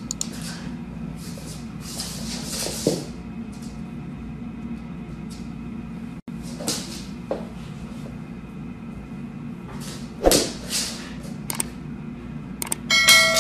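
A few brief scuffs and knocks of a husky and a cat tussling on a wooden floor, over a steady low room hum. The strongest knock comes about ten seconds in. Just before the end a louder passage with a few held tones starts.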